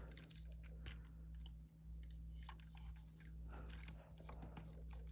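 Faint, irregular clicks and small knocks of hard plastic as the parts of a Transformers Studio Series 86 Ratchet action figure are handled and folded during its transformation, over a steady low hum.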